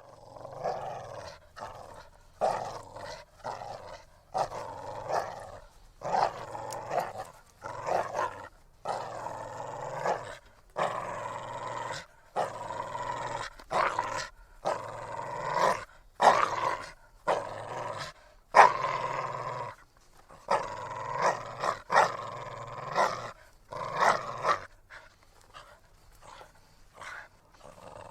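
Bull terrier making short, throaty growling sounds, one after another about once a second in time with its breathing.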